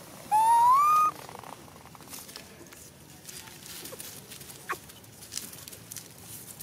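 A young macaque gives one loud call lasting just under a second, rising in pitch as it goes. After it come faint rustles and ticks in dry leaf litter, with one short squeak.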